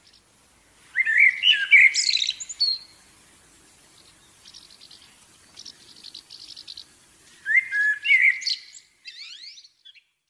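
A small songbird singing: two loud bursts of chirping, warbling song with quieter rapid trills between them and a quick run of sweeping notes near the end.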